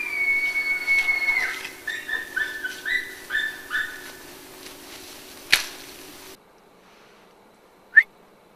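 Elk bugle: a whistle that rises sharply, holds high for about a second and a half, then breaks into a run of about six short stepped notes. A sharp click follows a couple of seconds later, and another near the end.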